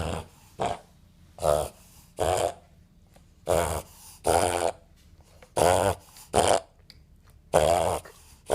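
Five-month-old Boston Terrier puppy reverse sneezing: a run of about nine harsh, fluttering inward snorts, each under half a second, mostly in quick pairs. The episode is a common one in the breed and considered normal for it.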